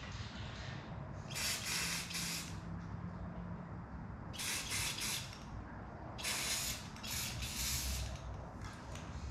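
Aerosol spray paint can spraying a paper stencil in four short hissing bursts.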